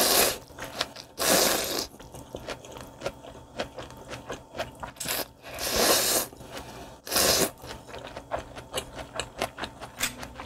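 Slurping tom yum rice noodles: about five loud slurps with wet chewing and small mouth clicks in between.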